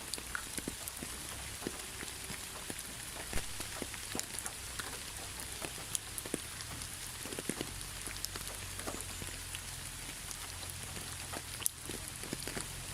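Steady rain falling: an even hiss, with many single drops pattering and dripping close by at irregular moments, over a low steady rumble.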